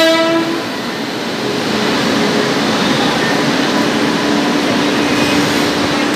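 WAP-7 three-phase electric locomotive moving off along the platform: the tail of its horn blast cuts off just at the start, then steady running noise with a faint constant hum.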